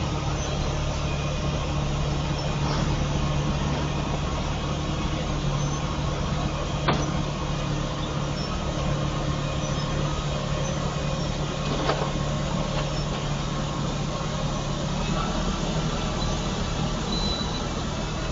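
Road milling machine running steadily, a heavy engine drone with a rough noisy wash over it, broken by two sharp knocks about seven and twelve seconds in.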